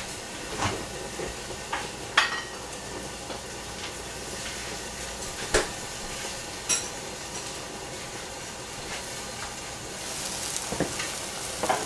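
Long beans cooking in a covered stainless steel saucepan on a gas burner: a steady sizzling hiss with a few sharp ticks. Near the end the metal lid is lifted, the sizzling gets louder, and the lid clinks.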